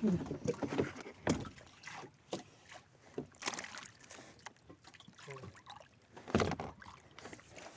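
Irregular knocks and bumps with water noise on a small wooden fishing boat at sea.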